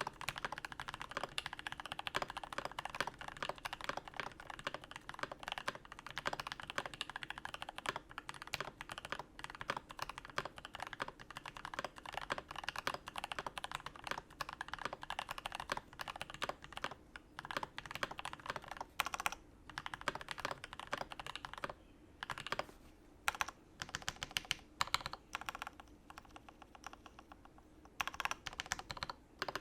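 Typing on a U80-A SEQ2 custom mechanical keyboard with a brass plate, plate silicone foam, sorbothane in the case and no PE foam; its switches are lubed with Tribosys 3204 and filmed. Fast, continuous keystrokes run for about twenty seconds, then the typing breaks into shorter bursts with brief pauses.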